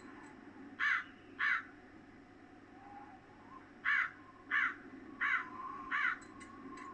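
Harsh bird calls: two short calls about a second in, then four more in an even row a few seconds later.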